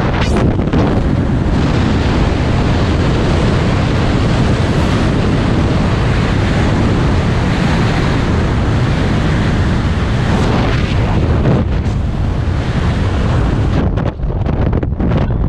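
Freefall airstream blasting across a skydiver's camera microphone as a loud, steady rush of wind. Near the end it breaks up into uneven gusts and dips as the parachute opens.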